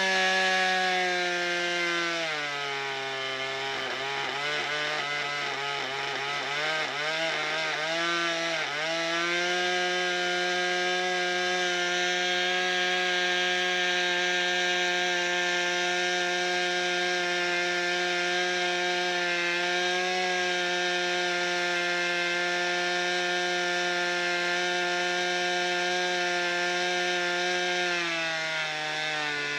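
Hangar 9 Sundowner 50's JEN .57 model aircraft engine running on the ground. Its pitch drops about two seconds in and wavers up and down as the throttle is worked, climbs back to a steady higher speed at about nine seconds, then eases down slightly near the end.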